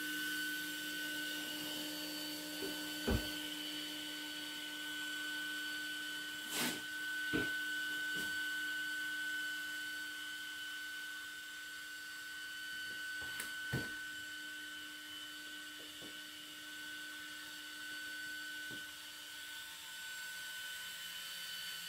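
Low, steady electrical hum with a thin high whine, broken by a few faint clicks and knocks.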